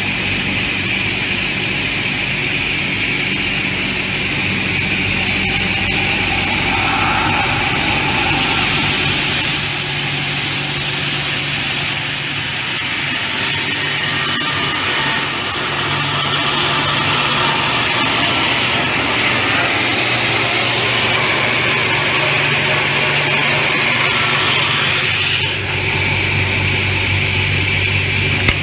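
Automatic aluminium corner-cleat cutting saw running, its circular blades spinning and cutting aluminium extrusion into corner keys: a loud, steady machine noise with a high whine that comes in about a third of the way in and dips briefly in pitch near the middle.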